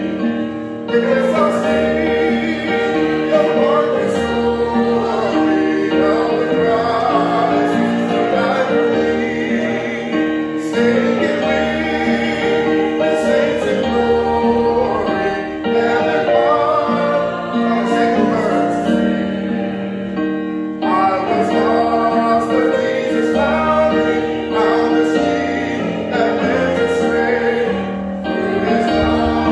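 Voices singing a hymn over piano accompaniment, with long held notes.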